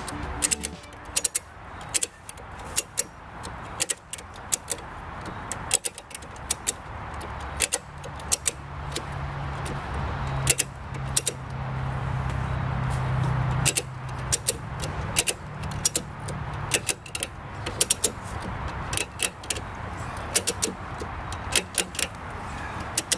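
Ratchet strap's ratchet being worked by hand as a makeshift winch under load, its pawl clicking sharply over and over through repeated strokes. A low engine-like hum swells and fades in the middle.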